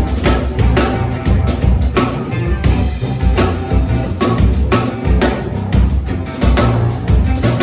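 A live band playing rock music at a sound check, with a drum kit keeping a steady beat under guitar and bass.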